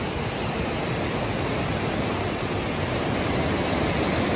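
Fast mountain river rushing over rocks, a steady full roar of water without a break.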